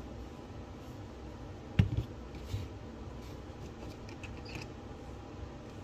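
Steel pistol magazines handled and set down on a cardboard-covered table: one sharp knock just under two seconds in, a couple of lighter clicks right after, then soft handling taps.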